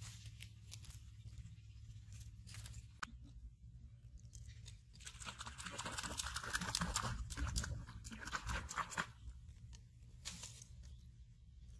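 Dry plant stems and leaf litter crackling and rustling, loudest for a few seconds in the middle, with scattered sharp clicks.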